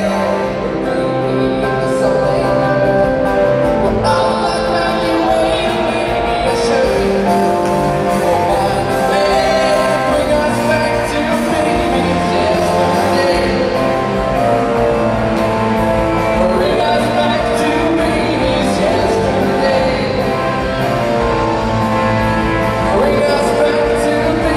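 A live band playing a song: drum kit and keyboards with a singer's voice over them, loud and steady.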